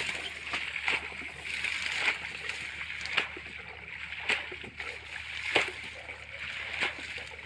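Irregular splashing and sloshing in shallow muddy water as clumps of water hyacinth are pulled out and hands work through the mud.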